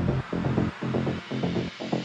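Minimal techno in a breakdown, with the kick and deep bass mostly pulled out and the top end filtered off, leaving a synth pulsing about four times a second.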